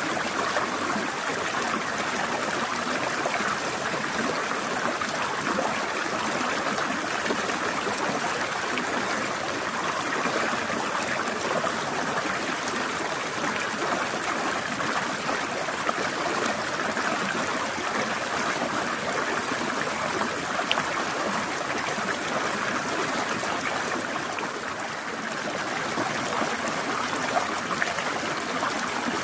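Forest stream flowing steadily, a continuous trickling rush of water with no other sound.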